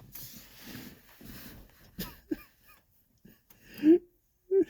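A person's voice making short wordless sounds, soft and breathy at first, then two brief pitched vocal sounds, the louder one about four seconds in.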